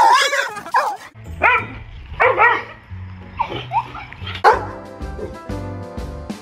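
A dog making a run of short rising-and-falling cries, over background music that turns to held chords in the second half.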